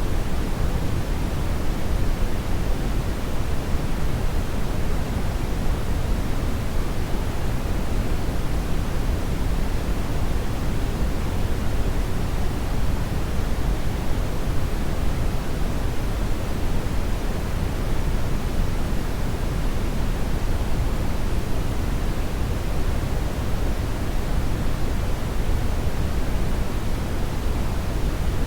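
Hair dryer running steadily: a continuous, even rush of air with most of its weight in the low end and no changes.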